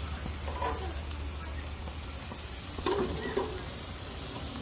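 Chicken pieces sizzling on the grate of a gas grill as metal tongs turn them over: a steady frying hiss.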